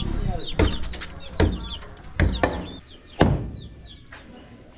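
Heavy curved blade chopping buffalo meat and hide on a wooden chopping block: about five sharp chops, the loudest near the end. Young chickens keep up repeated short falling peeps throughout.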